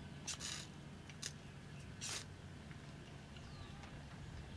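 Ferro rod scraped hard against the spine of a knife: three short, rasping strikes about a second apart. The knife's spine is a poor striker.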